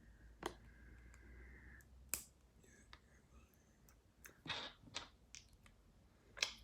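Faint, scattered clicks of LEGO minifigure pieces being handled and snapped together, about six sharp clicks spread over a few seconds.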